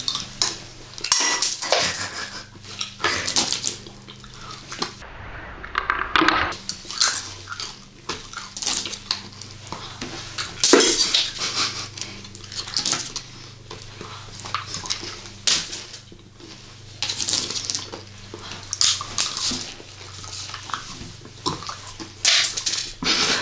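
Two people chewing candy close to the microphone: a dense run of irregular, sharp mouth and chewing sounds.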